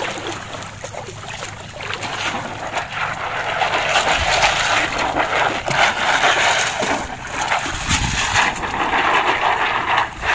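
Shallow seawater splashing and sloshing as a mesh sack of clams is swished in it by hand, louder from about two seconds in.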